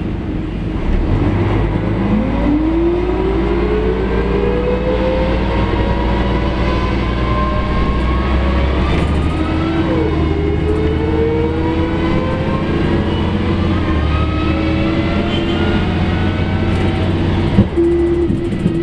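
Volvo B58 bus driving off, heard from inside the passenger cabin: a low drone under a drivetrain whine that climbs in pitch, dips about halfway through as it changes gear, then climbs again and settles to a steady tone. A single knock comes near the end.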